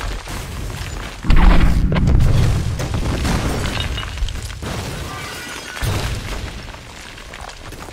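Explosions blowing out a building: a heavy blast about a second in with a deep rumble and shattering debris, then a second blast near six seconds in, the rumble fading toward the end.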